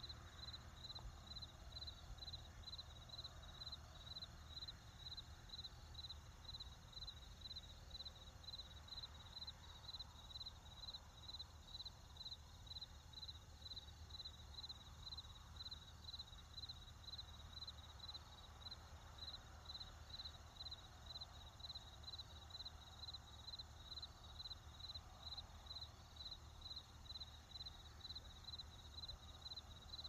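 Crickets chirping steadily at about two chirps a second, over a faint low rumble of distant traffic.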